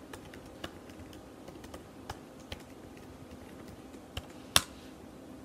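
Typing on a laptop keyboard: scattered, irregular key clicks, with one sharper, louder keystroke about four and a half seconds in.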